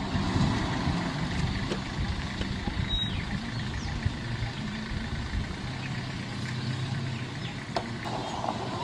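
A motor vehicle's engine idling steadily with a low hum, with a few faint clicks over it.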